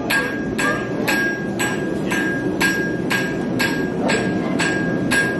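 Blacksmith's hammer striking metal on an anvil at a steady pace, about two blows a second, each blow leaving a short clear ring.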